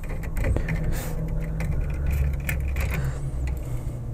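Screwdriver undoing the small Phillips screws on a 3D printer's printhead back cover: scattered light clicks and scrapes over a steady low hum.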